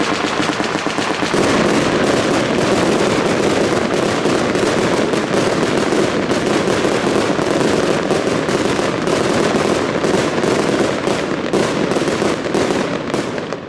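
Rapid-firing firework battery: a dense, unbroken stream of shots and crackling bursts, dying away near the end.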